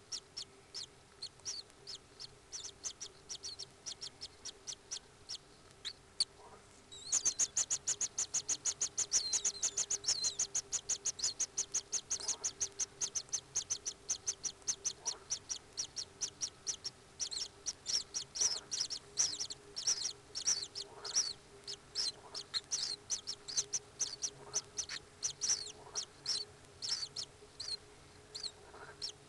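Common kingfisher chirping in the nest burrow: short, high chirps repeated rapidly, sparse at first, then a fast, dense series from about seven seconds in that slowly thins out again. A faint steady hum lies underneath.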